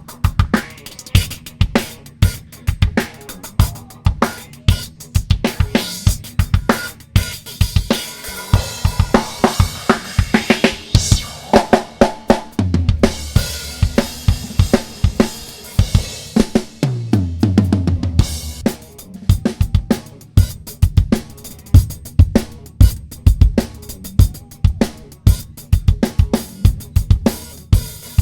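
Recorded rock drum kit played back: kick, snare, hi-hat and cymbals in a steady beat, heard through a Calrec PQ1549-style equalizer set to a narrow, high-Q boost that makes it ring. A rising tone can be heard about ten seconds in.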